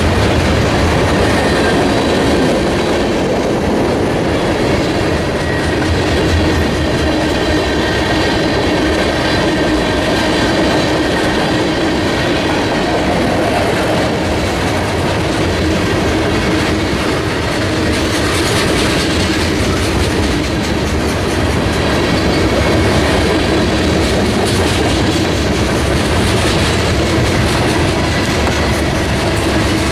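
Freight cars of a Norfolk Southern mixed freight train passing close by at speed: a steady, loud rumble and clatter of steel wheels on the rails, with a thin high ringing from the wheels in the first third.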